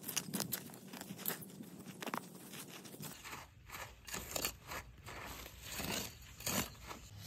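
Small hand hoe scraping and chopping into dry, crumbly soil in irregular strokes, with the crunch of loosened earth, while digging out sweet potatoes.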